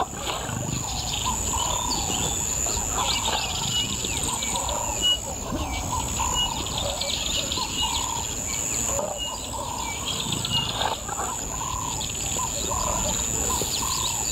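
Bush ambience: a bird calling in short, repeated notes with higher chirps among them, over a steady high-pitched insect drone.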